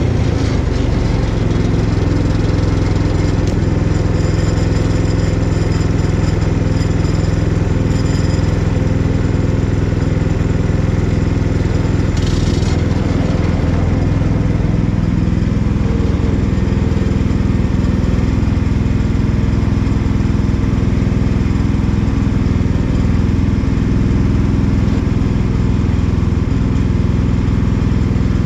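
Portable bandsaw sawmill running steadily under load, its small gasoline engine driving the band blade through a small cherry log along its length. A short noisy burst comes about twelve seconds in.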